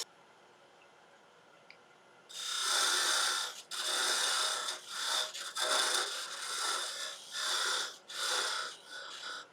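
Spindle gouge cutting a spinning piece of laburnum on a wood lathe: after a quiet start, about two seconds in, a string of hissing cuts follows, each under a second, with short breaks between passes.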